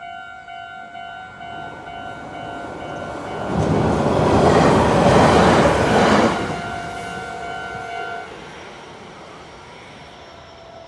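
Japanese railroad level-crossing warning bell ringing in a steady pulsing clang while a train passes. The train's rush of wheel and body noise swells about three seconds in and is loudest for a few seconds before fading. The bell stops about eight seconds in.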